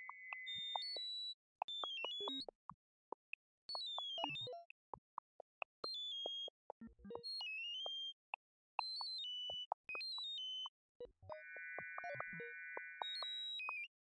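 Electronic sonification of prime numbers: short synthesized tone pulses and quick stepwise falling runs of high beeps, produced by reading out the vertical and diagonal rows of the Ulam spiral. A steady high tone is held at the start, and about eleven seconds in a cluster of several steady high tones sounds together for about two seconds.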